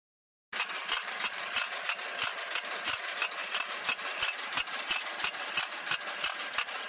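Walk-behind powered onion transplanter running as it plants seedlings into a mulched bed: a steady small-engine drone with a quick, regular mechanical clatter of about three clicks a second. It starts abruptly about half a second in.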